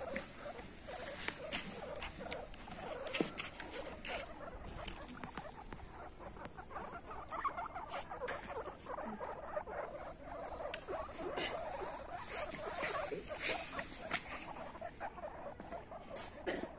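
A group of guinea pigs, adults and pups, making a dense run of short squeaks and chirps, with scattered sharp clicks.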